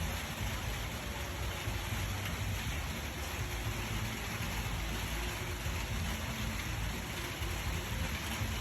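Steady rain falling: a continuous even hiss with a low rumble underneath.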